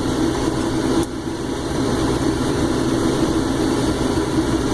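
Case IH 2388 combine running steadily while harvesting corn, a constant engine and threshing drone heard from the cab, with one brief click about a second in.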